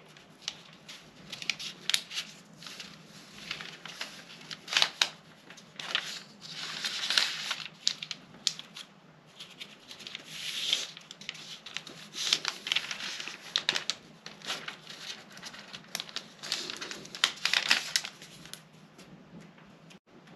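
Pattern paper rustling and crinkling in irregular bursts with sharp crackles, as the cut sheet is shifted and folded to close the bust dart.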